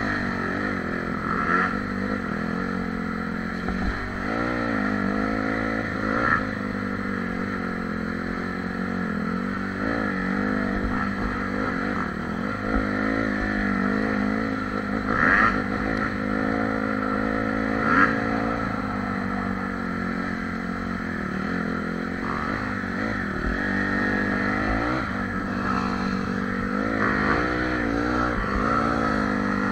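Honda CRF dirt bike's four-stroke single-cylinder engine running while riding, its pitch rising and falling with the throttle. A few short, sharp knocks or clatters stand out over it.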